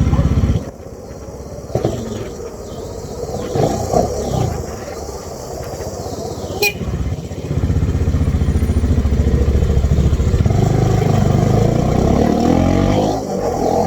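Bajaj Dominar 400 UG motorcycle's single-cylinder engine revved, with a loud rev at the start that drops back, uneven running through the middle, then louder steady running from about halfway with the pitch shifting near the end. A single sharp click sounds about halfway through.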